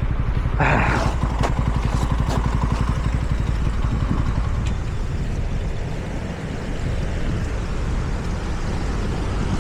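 TVS Ronin's single-cylinder engine running steadily as the motorcycle is ridden, with a brief louder rush of noise about a second in.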